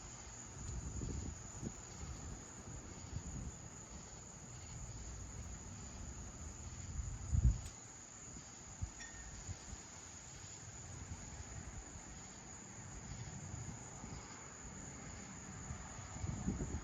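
Crickets chirping steadily in the night air, under uneven low rumbling, with one brief low thump about seven and a half seconds in.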